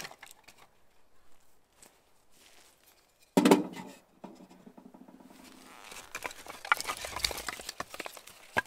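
A sudden metallic clang from the stainless-steel wood stove, ringing on and fading over about two seconds. Then crackling, splintering and rustling as a split piece of pine firewood is pulled apart by hand into kindling.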